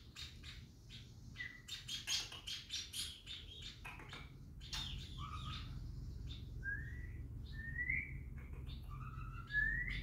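A small cage songbird chirping: a quick run of sharp chirps in the first half, then a series of short rising whistled notes in the second half.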